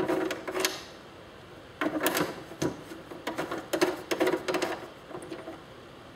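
Screwdriver turning a screw out of a typewriter's casing: short spells of metallic clicking and scraping, three times, with pauses between.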